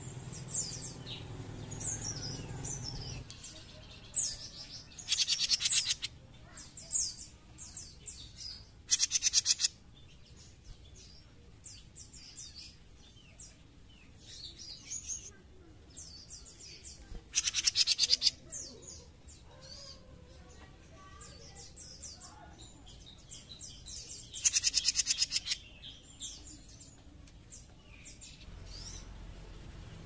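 Caged jenggot mini songbird singing: short high chirps and whistles, broken four times by a loud, fast buzzing trill of about a second.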